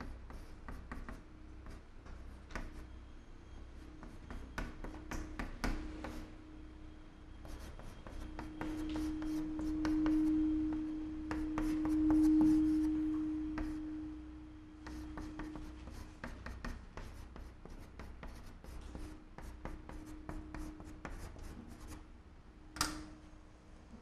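Chalk tapping and scraping on a blackboard as Chinese characters are written stroke by stroke, in many short strokes. A steady low hum swells in the middle and fades again, and a sharp knock comes near the end.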